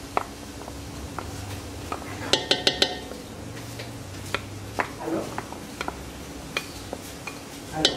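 Wooden spoon scraping and tapping tomato paste out of a small glass bowl into an aluminium pressure cooker. There is a quick run of ringing clinks a little over two seconds in, and scattered single taps the rest of the time.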